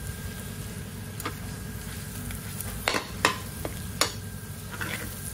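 Green and red peppers and onion sizzling in a frying pan while being stirred, the spoon knocking sharply against the pan about five times.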